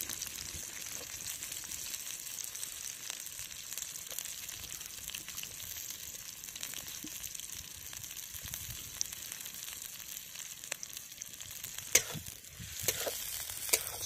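Sliced onions sizzling in hot oil in an iron kadai over a wood fire, a steady frying hiss with scattered crackles and a few sharper clicks near the end.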